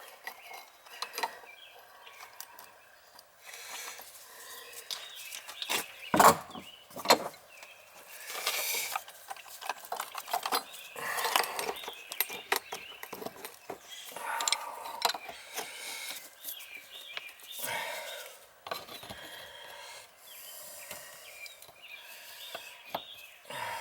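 Hand tools scraping, rubbing and clicking against the old outdoor shower fitting as it is worked loose, in irregular spells, with the loudest knocks about six seconds in.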